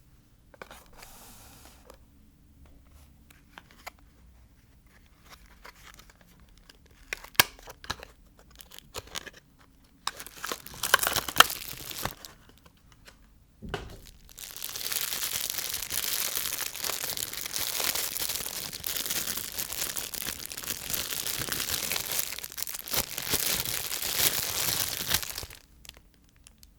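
Soap packaging being handled and unwrapped: scattered taps and short crinkles at first, then about eleven seconds of continuous tearing and crinkling of the wrapper that stops shortly before the end.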